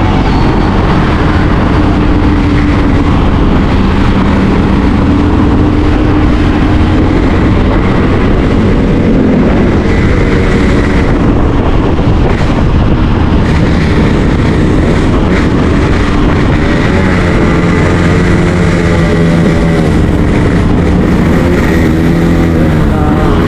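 Riding on a motorbike: wind rushing loudly over the microphone, with the engine running underneath.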